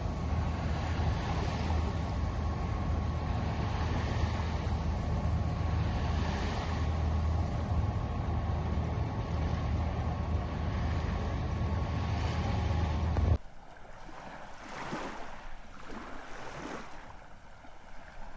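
A boat under way: a steady low engine-like rumble with wind and rushing water. About 13 seconds in it cuts suddenly to a quieter stretch of waves washing in slow swells.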